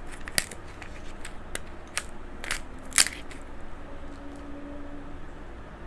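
King crab leg shells being cracked and cut apart: a handful of sharp snaps and crackles, the loudest about three seconds in.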